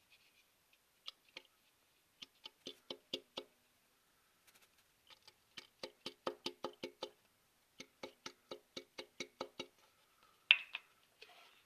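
Sharp, ringing knocks in runs of about four to five a second, with silent pauses between the runs and one louder knock near the end.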